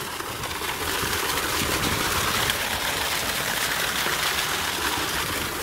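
Concrete pool spout pouring an arcing jet of water into a pool: a steady splashing rush that grows louder about a second in.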